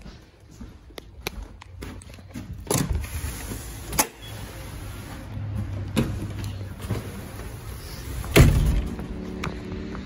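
Handling noise and footsteps with a series of sharp clicks and knocks, a front door opening, the loudest knock about eight seconds in. A low rumble of street traffic runs underneath.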